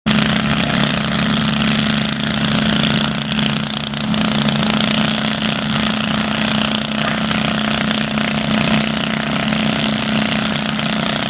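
Lawn tractor's small engine running steadily under load as it pulls a weight-transfer sled, with a rattly, even hum; a lower note drops away about four and a half seconds in.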